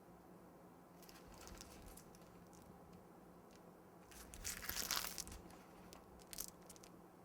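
Piping bag of buttercream faintly crinkling and rustling in the hand as it is squeezed to pipe flower petals, with one louder rustle a little past halfway.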